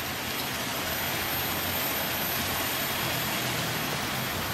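River flowing: a steady, even rush of water.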